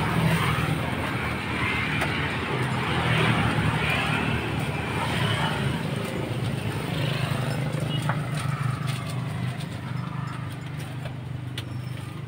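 Motorbike traffic passing on a street: engines swell and fade as they go by, over a steady low hum.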